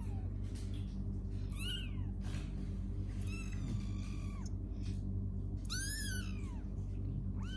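A young kitten meowing about four times, high thin meows about two seconds apart that each rise and then fall in pitch, over a steady low hum.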